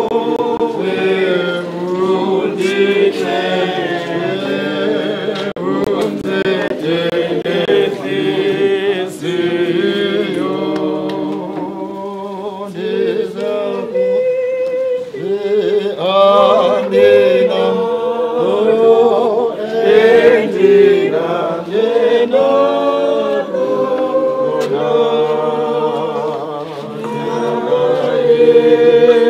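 A group of mourners singing a hymn together, unaccompanied, many voices holding long notes.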